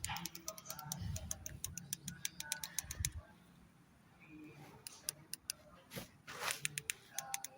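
Rapid clicking of the plastic buttons on a remote control for solar floodlights, pressed over and over for about three seconds, then a pause, then another run of clicks near the end; the light will not switch off.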